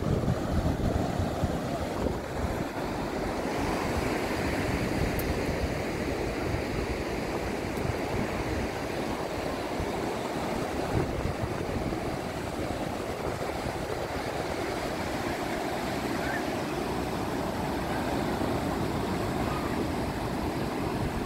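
Ocean surf breaking and washing up onto a sandy beach: a steady, continuous rush of waves.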